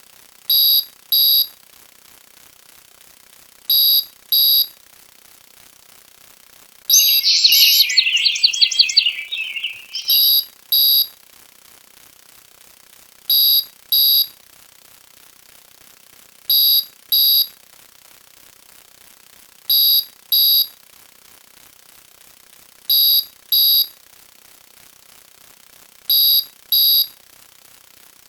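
An electronic alarm beeping in pairs of short high beeps, a pair about every three seconds. About seven seconds in, a louder, rapid, high-pitched rattling burst lasts some two and a half seconds.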